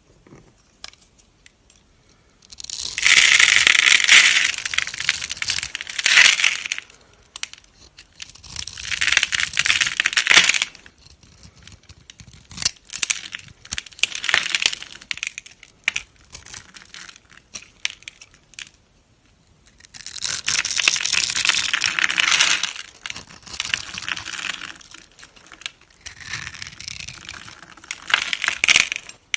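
A knife cutting into a dry bar of soap, crisp crackling and crunching that comes in repeated bursts of a few seconds each, with short quiet pauses between cuts.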